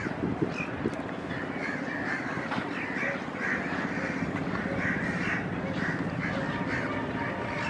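Crows cawing again and again, many short calls one after another, over a steady low rumble.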